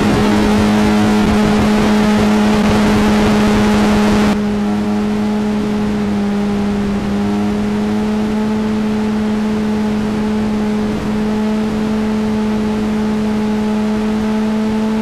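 Motorcycle engine holding steady high revs at speed, under a heavy rush of wind noise. About four seconds in the wind hiss drops suddenly while the engine note carries on unchanged.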